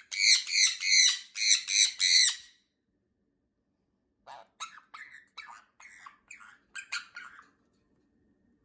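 Pet parrot screeching: about seven loud, harsh squawks in a steady run, then after a pause a string of shorter, quieter calls. The owner takes the shouting for alarm at voices of someone working outside.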